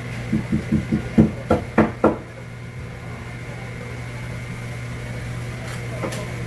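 Knife chopping on a wooden cutting board: about eight quick knocks, roughly four a second, growing louder and stopping about two seconds in, over a steady low hum.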